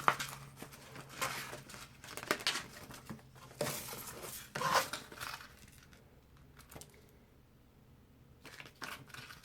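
Paper rustling as the pages of a printed tips booklet are handled and turned, in irregular scratchy bursts that stop for a couple of seconds near the end before a few faint rustles.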